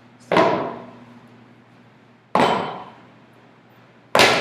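Weight plates clanking as they are set down and stacked, three times about two seconds apart, each clank ringing briefly.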